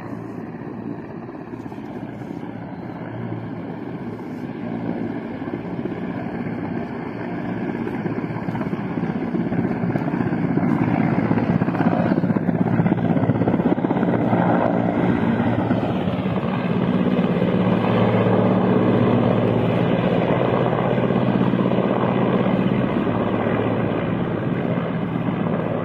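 Mi-17 transport helicopter flying low: steady rotor and turbine noise that grows louder over the first ten seconds or so as it comes close overhead, then stays loud, easing slightly at the very end.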